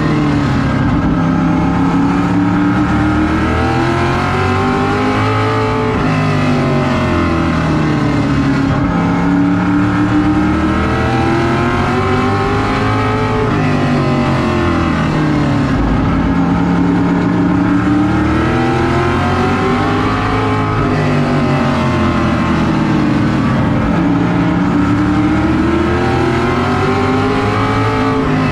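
Vintage modified race car's engine heard from inside the cockpit at racing speed, its pitch climbing under acceleration and falling off as the driver lifts, in a repeating cycle about every seven seconds as it works round the oval.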